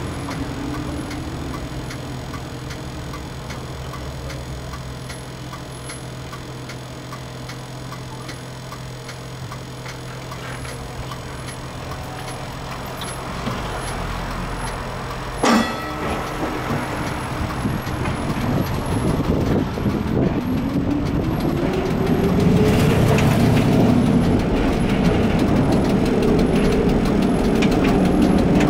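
1960 Standard streetcar standing with a low steady hum, a single sharp click about halfway, then its traction motors whining up in pitch as it pulls away from the stop and levelling off into a steady run.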